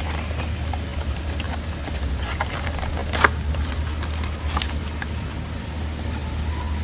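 Scattered sharp clicks and handling noises as a trading-card trial deck's packaging is opened and the cards are handled, over a low steady hum.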